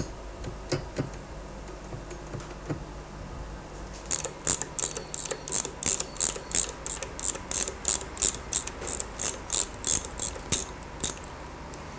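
Socket wrench ratchet clicking at about three clicks a second while the nut holding the water pump impeller on a Rotax engine's shaft is undone. A few scattered knocks of tool handling come before the clicking.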